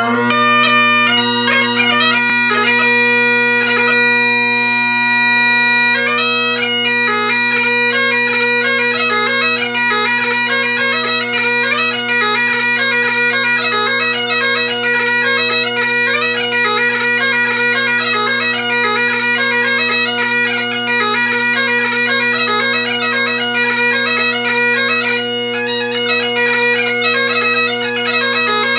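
Great Highland bagpipes played solo: the drones hold a steady chord underneath throughout. Over them the chanter first sounds a few long held notes, then about six seconds in breaks into a fast melody of rapidly changing notes.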